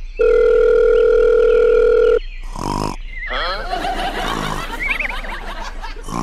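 A steady telephone dial-tone sound effect held for about two seconds, then cut off, followed by a busy jumble of warbling, squeaky cartoon sound effects with wavering pitch.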